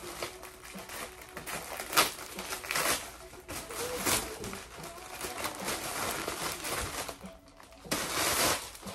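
Plastic poly mailer bag crinkling and rustling as it is torn and pulled open by hand, with a sharp snap about two seconds in and a loud burst of rustling near the end.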